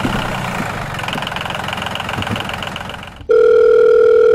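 Tractor engine running steadily and easing off a little, then about three seconds in it cuts off abruptly and a loud, steady telephone dial tone begins.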